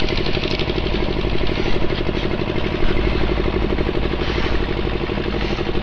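A small engine idling steadily, with a fast, even beat.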